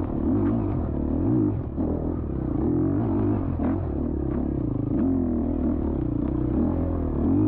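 Dirt bike engine revving up and down over and over, its pitch rising and falling every second or so, with a few sharp knocks.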